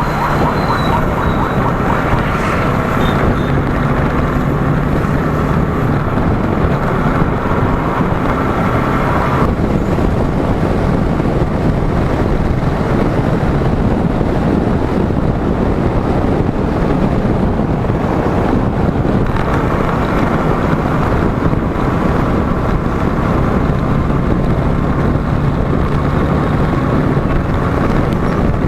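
Wind rushing over the microphone of a moving motorcycle, with the engine's steady drone underneath; the engine tone drops away about ten seconds in and returns after about twenty seconds.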